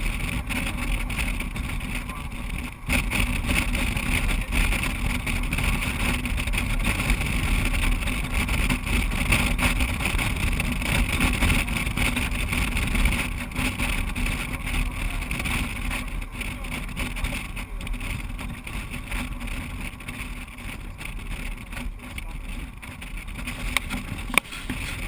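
Steady engine and wind noise of a moving vehicle cruising on a paved highway, heard from a camera mounted on it; it eases slightly in the second half, and a couple of sharp knocks come near the end.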